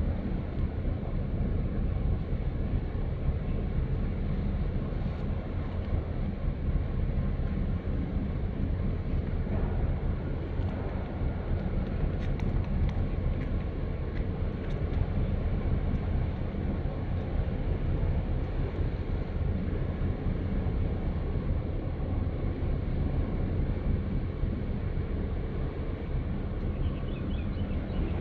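Steady low rumble with a constant engine-like hum.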